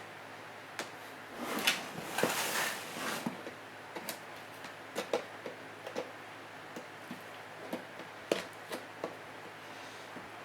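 A sealed steel surplus ammunition tin being worked at by hand: a rustling scrape about one and a half to three seconds in, then scattered light clicks and knocks.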